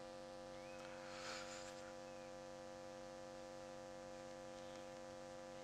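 Steady, faint electrical mains hum made of several steady tones, with a brief faint rustle about a second in.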